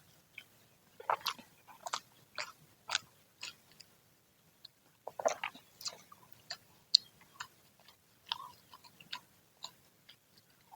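Close-miked crunching and chewing of freshly fried gorengan (Indonesian battered fritters): crisp bites and chews about twice a second, a denser crackling burst about five seconds in, then slower, scattered crunches.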